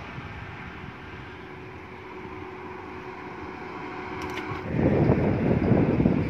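Steady outdoor background noise with a faint engine hum, then a loud, fluttering low rumble of wind buffeting the microphone from about five seconds in.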